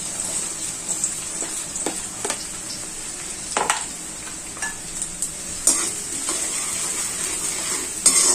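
Finely chopped onion sizzling in hot oil in a steel kadhai, with a few sharp knocks and scrapes of a spoon against the pan, the loudest near the end.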